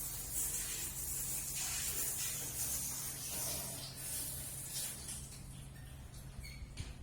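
A hissing noise that swells and eases for about five seconds and then dies down, over a low steady hum.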